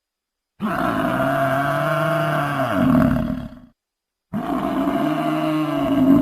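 Buffalo bellowing: two long, low calls of about three seconds each. The first begins about half a second in; the second begins just past the middle and is still sounding at the end.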